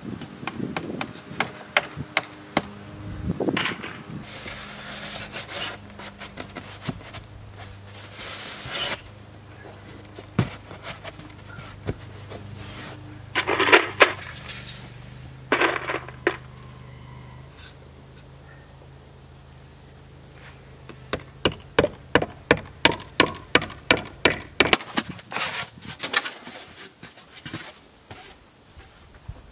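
Scattered knocks and clatter of hard objects being handled, with two louder swishing scrapes in the middle, a faint low hum through the first part, and a quick run of sharp taps, about three a second, near the end.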